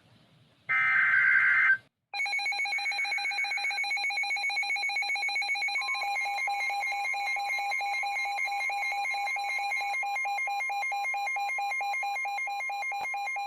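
A short burst of SAME digital alert header data near the start. Then a weather alert radio's electronic alarm beeping in a rapid, even pulse, joined about six seconds in by NOAA Weather Radio's steady 1050 Hz warning alarm tone, signalling that a new warning is about to be read.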